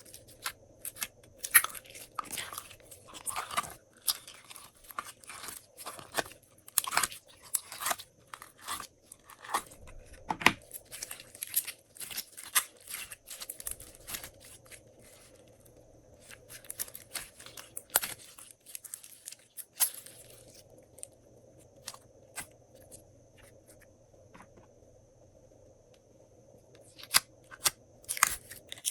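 Glossy slime being kneaded and stretched by hand, giving off dense crackling clicks and pops. The clicks thin out and stop for several seconds about three-quarters through, then start again near the end.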